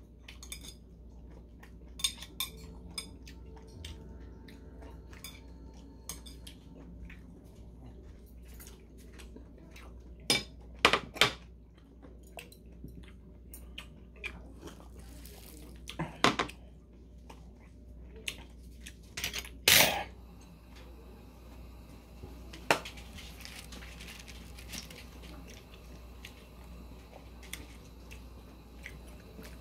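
Metal chopsticks and dishes clinking against ceramic bowls now and then, with louder clatters about ten seconds in and again around twenty seconds in, over a low steady hum.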